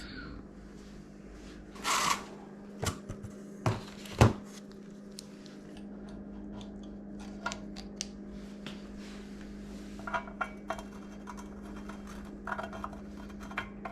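Metal tools and bicycle parts knocking and clinking as they are handled during assembly: a few sharp knocks in the first few seconds, then lighter scattered clicks and ticks. A steady low hum runs underneath.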